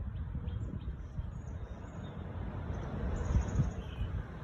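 Strong gusty wind buffeting the microphone: a low rumble that swells and drops with the gusts, loudest a little after three seconds in.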